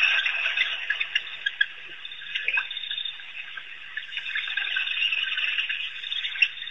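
Pack of African wild dogs giving rapid, high-pitched bird-like twittering chirps and squeals as they crowd in to feed. Busiest at the start, thinning out after a couple of seconds.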